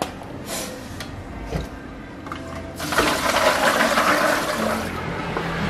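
A few light knocks, then about three seconds in a kitchen tap is turned on and water runs hard into a stainless steel sink, easing a little near the end.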